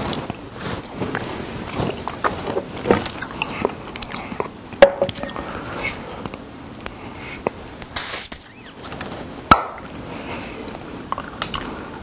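Handling and clicks of a small green glass bottle being opened, with a short crackling rasp about eight seconds in as the screw cap is twisted off, and a sharp click about a second later.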